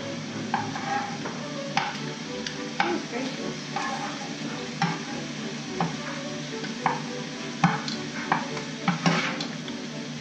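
Shrimp sizzling in a skillet as they are turned over, with repeated sharp clicks of metal utensils against the pans.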